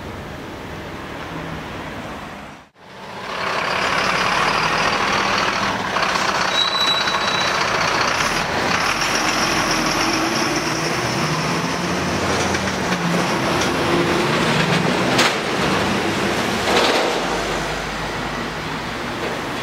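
Truck towing a car-transporter trailer moving in city traffic close by: steady engine and road noise, with two sharp knocks late on. The sound cuts out briefly about three seconds in.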